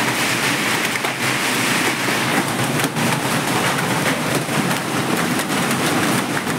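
Heavy hail and rain pelting down in a hailstorm: a loud, dense, steady hiss packed with the sharp ticks of hailstones striking.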